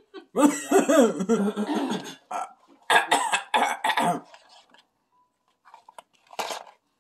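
A person's loud throat noises: a long one lasting about two seconds, another starting about three seconds in, and a short one near the end.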